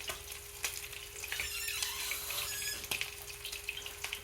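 Cornflake-breaded chicken drummies frying in hot oil, a steady sizzle with scattered small crackles, over a faint steady hum.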